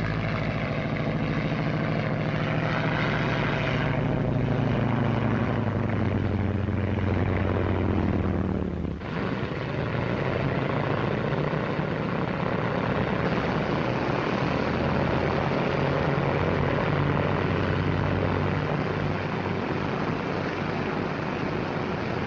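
Twin-engine propeller airplane's piston engines droning steadily as it lands and taxis. The low hum of the engines changes abruptly about nine seconds in, giving way to a rougher, noisier drone.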